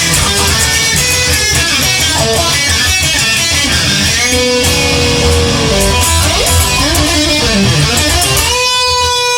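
Instrumental rock music: electric guitar playing held and bending lead notes over strummed guitar and a bass line.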